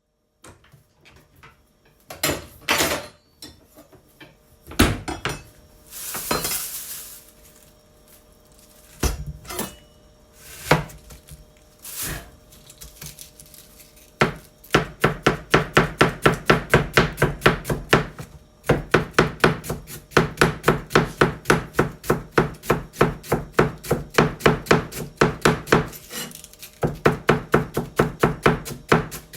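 Kitchen knife shredding cabbage on a cutting board. The first half has a few scattered knocks and handling noises; from about halfway a fast, steady run of chopping strokes begins, about four to five a second, with two brief pauses.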